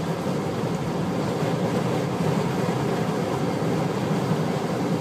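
Steady road and engine noise inside a moving car's cabin, an even low rumble of tyres and motor while driving along a highway.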